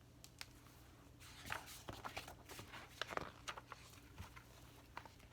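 Faint rustling and soft taps of a paperback picture book being handled and opened, a few irregular clicks clustered over about two seconds.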